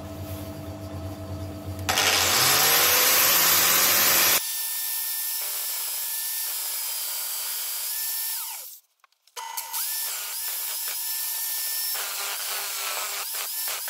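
Hitachi angle grinder running with its wheel grinding the tip of a drill bit spun in a metal lathe chuck, regrinding the bit to a 90-degree point for chamfering holes. A lower hum gives way to a louder run-up about two seconds in, then a steady high whine whose pitch shifts as the wheel loads up. There is a short break near nine seconds.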